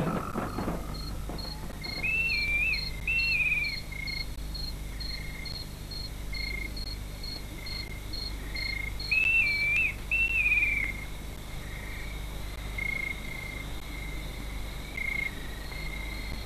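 Night-time savanna ambience: an insect chirping in short high pulses about twice a second, with scattered short high calls. Two pairs of louder whistled calls stand out, one pair a couple of seconds in and another about nine seconds in.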